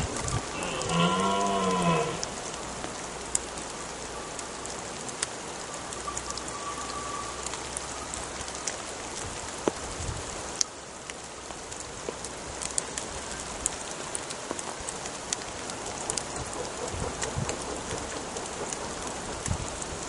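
Red deer stag giving one short rutting roar about a second in, a single call that rises and falls in pitch, over steady rain pattering on the vegetation.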